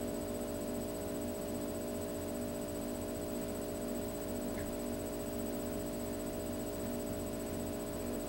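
Steady background hum with a faint hiss, unchanging throughout, with no distinct sound events.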